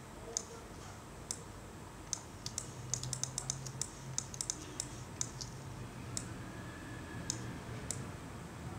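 Computer keyboard keys and mouse buttons clicking in an irregular scatter, with a quick flurry of clicks from about three to five and a half seconds in, over a faint low hum.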